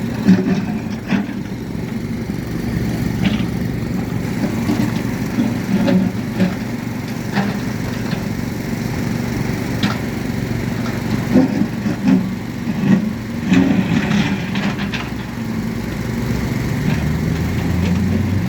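Vehicle engine running steadily with a low hum, with scattered short knocks and clicks.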